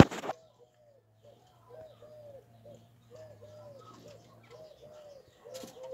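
A sharp knock right at the start, then pigeons cooing over and over, short low arched notes overlapping.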